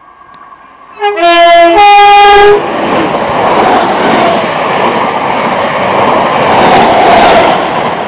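An electric multiple-unit passenger train sounds its two-tone horn about a second in, a lower note and then a higher one, as a warning for the foot crossing. It then passes close by, its wheels running loudly on the rails.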